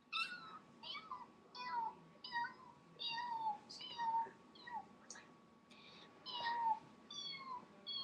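Young kitten meowing over and over: about a dozen short, high-pitched meows in a row, roughly one a second or faster, each falling in pitch.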